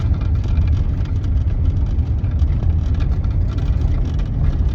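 Truck driving slowly over a farm track: a steady low engine and tyre rumble with light rattling.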